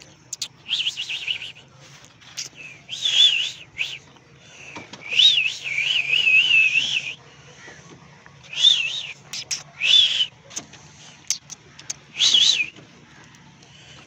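A dog whining: about six high, wavering whines, the longest running nearly two seconds in the middle, with short clicks and taps between them.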